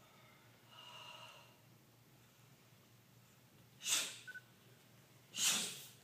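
Sharp, forceful breaths exhaled with the techniques of a Soo Bahk Do form, twice: about four seconds in and again a second and a half later.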